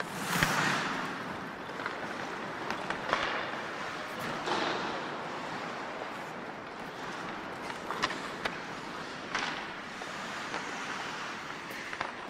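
Ice hockey practice on the rink: skate blades scraping across the ice in several loud swishes over a steady hiss, with a few sharp clacks of sticks and pucks.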